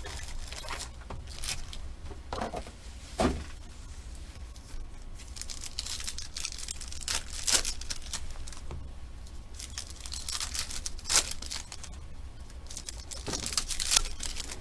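Plastic wrap and packaging tearing and crinkling in irregular bursts as a sealed box of trading cards is opened by hand.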